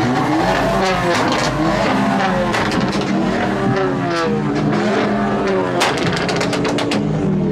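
Car engine revving over and over, its pitch rising and falling several times in a row.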